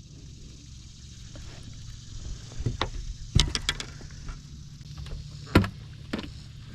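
A handful of sharp knocks and clatters in a fishing boat, loudest about three and a half and five and a half seconds in, over a low steady hum.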